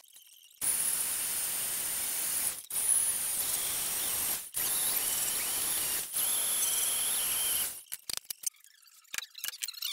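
Band saw cutting through a flat metal bar: a steady, high-pitched cutting noise that breaks off briefly three times and stops about eight seconds in, followed by light scattered clicks and taps.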